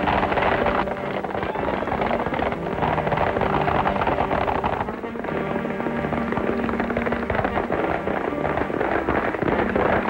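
Several horses galloping at speed, a dense rapid clatter of hoofbeats, under orchestral chase music.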